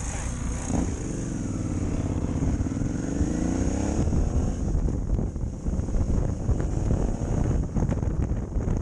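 Motorcycle engine pulling away and accelerating, its pitch rising over the first few seconds, heard from the rider's own bike. As speed builds, wind buffeting on the microphone grows to cover the engine.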